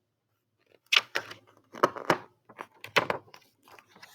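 A book being handled as a page is turned: an irregular run of sharp crinkling clicks and rustles of paper and cover.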